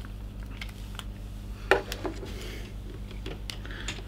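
A few light clicks and clinks of a screwdriver and a small handheld light being handled and set down on a desk. The loudest comes nearly two seconds in, with another just after. A steady low hum runs underneath.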